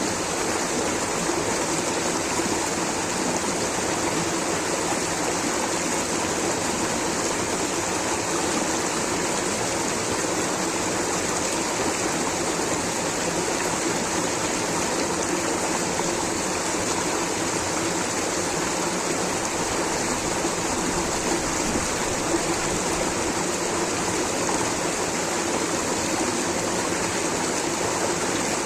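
Rushing water of a stream or small waterfall, a steady unbroken rush.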